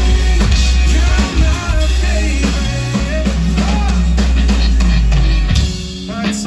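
Live rock band playing loud, with heavy bass and kick drum under guitar lines; the bass and drums cut out about five and a half seconds in, leaving the music thinner.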